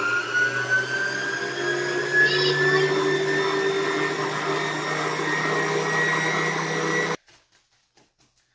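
Electric stand mixer running, creaming butter and sugar in its steel bowl: a steady motor whine that jumps up in pitch as it is turned up at the start, then keeps climbing slowly. It cuts off suddenly about seven seconds in.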